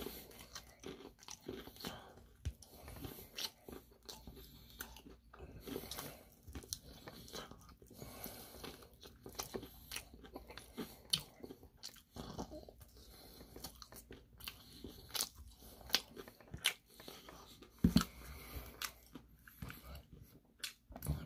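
Close-up eating sounds: irregular crunchy bites and chewing of Korean fried chicken, with sharp crackles of the fried crust.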